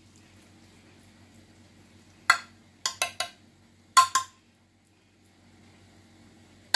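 Metal spoon clinking against a glass baking dish: one sharp tap about two seconds in, three quick taps just after, and two more around four seconds.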